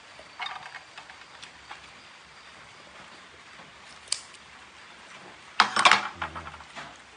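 Scattered light clinks and knocks of tableware during a meal, with a louder burst of clatter about five and a half seconds in.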